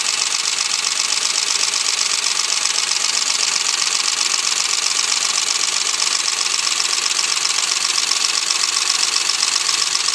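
Ford 4.6-litre V8 idling with a steady, rapid valvetrain clatter from the lifters and rockers. This is the sign of an oil restrictor blocked by gasket material, leaving one cylinder head's cam and lifters without oil.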